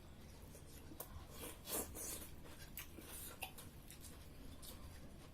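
Quiet eating sounds: soft chewing with scattered small clicks and scrapes of spoons and plates, the loudest a little under two seconds in.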